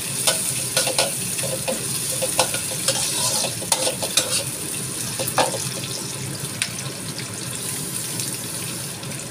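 Sliced onions sizzling as they fry in a wok, with a metal spatula scraping and clacking against the pan as they are stir-fried. The spatula strokes stop a little past halfway, leaving only the steady sizzle.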